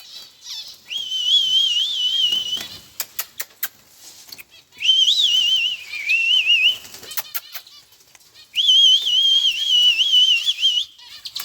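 A person whistling a wavering, warbling call three times, each lasting about two seconds, to call trained pet birds back into their cage. Short sharp clicks fall between the whistles.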